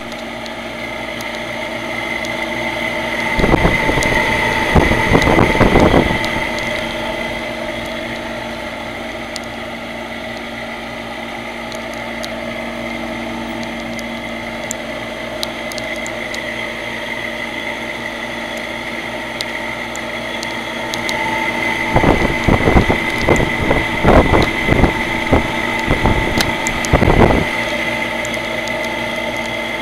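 Old HVAC unit's three-blade fan running with a steady high whine over its hum, the sound of its bad bearings. Twice, about four seconds in and again for several seconds past the twenty-second mark, loud rough rushing noise swells over it.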